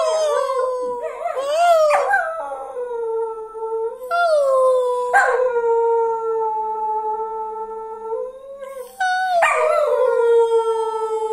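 A whippet howling: several long, drawn-out howls, each sliding slowly down in pitch, with short breaks between them.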